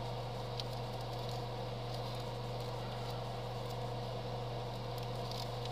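Steady low hum of a small electric motor running.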